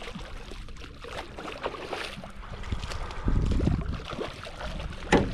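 Handling noises in a small boat: scattered clicks and knocks over water sloshing, with a burst of low rumble a little past halfway and one sharp knock near the end.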